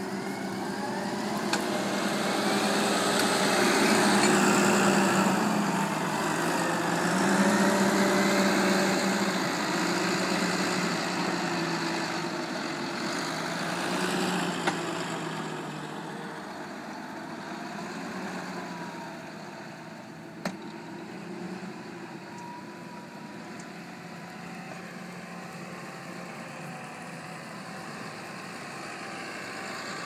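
John Deere 7930 tractor's six-cylinder diesel engine running under load as it pulls a reversible plough through the soil, louder in the first half and quieter after about fifteen seconds. A single sharp click about twenty seconds in.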